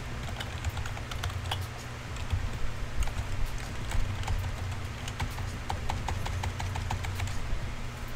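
Typing on a computer keyboard: irregular runs of quick key clicks over a steady low hum.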